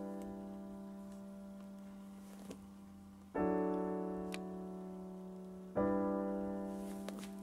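Background music of soft piano chords, a new chord struck about three and a half seconds in and another near six seconds, each left to ring and slowly fade.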